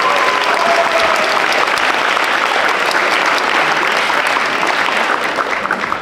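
Audience applauding, a dense wash of many hands clapping that starts to die down near the end.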